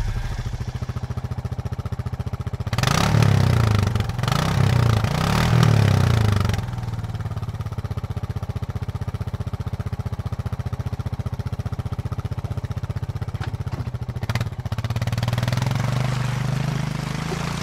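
Off-road vehicle engine idling with a steady pulse. It is revved three times in quick succession about three seconds in, then rises again near the end.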